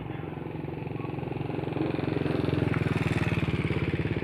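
Small motorcycle engine running close by. It grows louder over the first two seconds or so, then eases slightly near the end.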